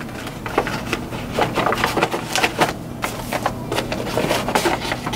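Paper evidence-collection packets from a sexual-assault evidence kit rustling and crackling as they are handled and taken out of a cardboard kit box, with irregular light knocks.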